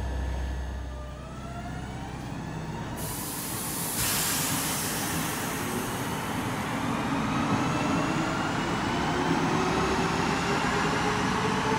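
Skåne X61 (Alstom Coradia Nordic) electric multiple unit moving through the underground platform, its traction motors whining and rising steadily in pitch. A rushing noise joins about three seconds in and grows louder a second later.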